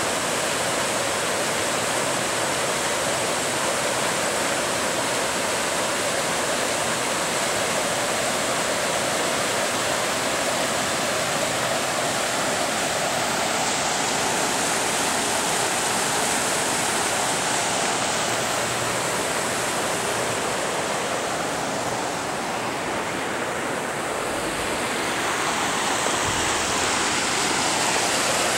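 Steady rushing of a river running high after heavy rain, its water spilling over a series of low weirs.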